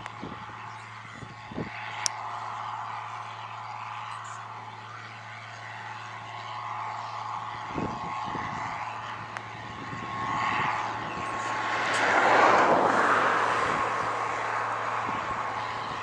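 John Deere 4650 tractor's six-cylinder diesel engine running under load as it pulls a 24-row bean planter. It grows louder to a peak about twelve seconds in as it passes close, then begins to fade.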